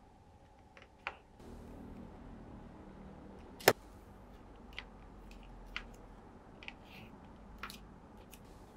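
Hands working masking tape onto a small hard-plastic Mini 4WD body shell: light rustling with a series of sharp clicks and taps of the plastic, the sharpest about three and a half seconds in.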